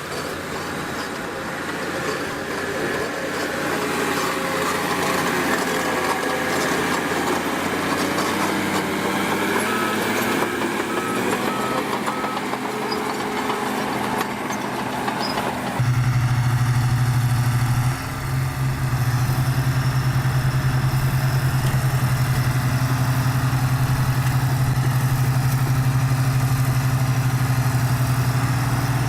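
Diesel engine of heavy earthmoving machinery running, its pitch wavering under load. About 16 s in the sound changes abruptly to a louder, steady low engine drone that drops out briefly about two seconds later.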